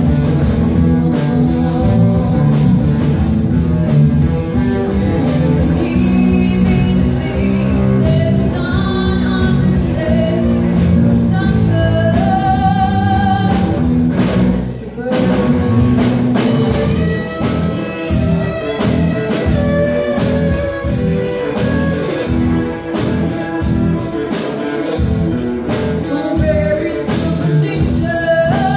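Live rock band playing: electric guitars and a drum kit, with a woman singing from about six seconds in. The music thins out briefly near the middle, then carries on.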